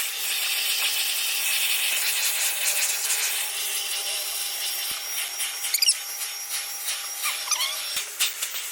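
Von VAVC-16DMR bagless vacuum cleaner running steadily, its nozzle rubbing over fabric sofa upholstery to pick up cat hair.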